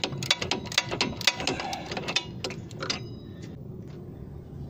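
Ratchet clicking in short strokes as the lower nut of the anti-roll bar drop link is undone, about four or five clicks a second, stopping about three seconds in.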